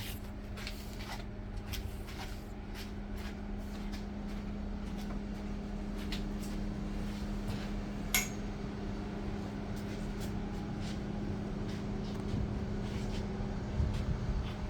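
An electric machine motor humming steadily, with scattered light clicks and one sharper click about eight seconds in.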